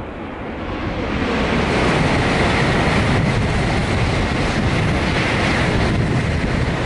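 Shinkansen bullet train passing at speed: a loud rushing noise of wheels and air that builds over the first two seconds, then holds steady with a hiss as the long train goes by.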